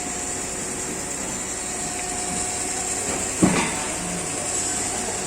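A T806A cylinder boring machine running with a steady hum and a high hiss, with a single knock about three and a half seconds in.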